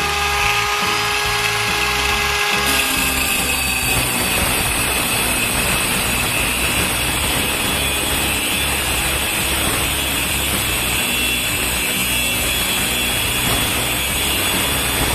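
Lomax SIM 100 angle grinder (600 W, 11,000 rpm) with a 4-inch Turbo Cut diamond blade running at full speed with a steady whine, then, about three seconds in, the blade bites into the workpiece and a steady grinding cut noise takes over.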